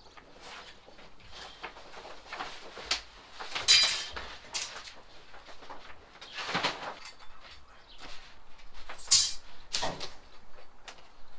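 Large sheets of paper template and vinyl flooring being lifted, flipped and rolled up on a garage floor: irregular rustling, flapping and scraping, with louder swishes about 4 s and 9 s in.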